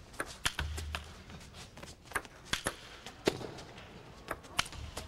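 Table tennis rally: a celluloid ball clicking off rubber-faced bats and bouncing on the table, a dozen or so sharp taps at an uneven pace, one louder hit about three seconds in.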